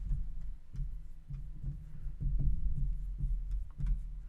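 Marker writing on a glass lightboard, heard as an uneven run of low, dull thuds with faint ticks from the strokes.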